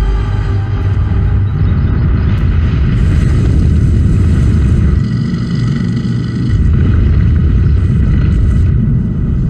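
Loud, deep, continuous rumble of a dramatised earthquake, the ground shaking under the mountain, swelling slightly about two-thirds of the way through.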